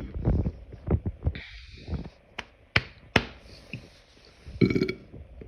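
Quiet gap between belches: several sharp clicks and taps, a short hiss about one and a half seconds in, and a brief low throaty sound near the end.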